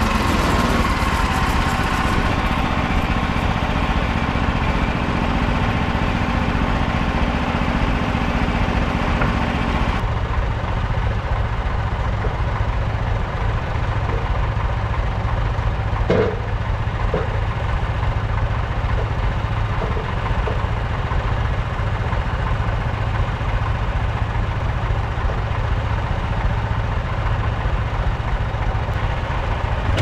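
Petrol engine of a Frontier OS27 portable bandsaw mill running steadily. For the first ten seconds or so the blade is sawing through a Scots pine log, then that cutting noise stops suddenly, leaving the engine running on its own. A single wooden knock comes about sixteen seconds in, as a sawn board is handled.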